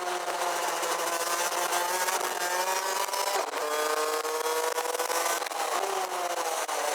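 Rotax Max DD2's 125 cc single-cylinder two-stroke kart engine under power, its pitch climbing, dipping briefly a little over three seconds in, climbing again, then falling away as the kart slows near the end. A steady rush of wind hiss on the onboard microphone runs under it.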